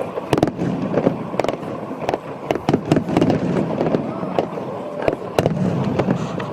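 Fireworks going off: irregular sharp bangs and crackles, several a second at times, over the chatter of voices.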